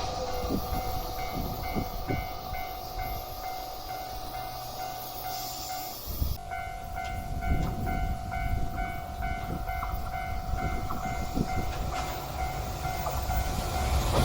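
Level crossing warning bell ringing in an even ding-ding rhythm, about two strokes a second, over the low rumble and wheel knocks of a train. The sound breaks off briefly about six seconds in, then the bell carries on.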